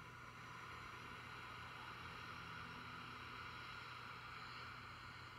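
A faint, slow, steady breath drawn through the nose as a long hiss during a guided breathing exercise, over a low steady hum.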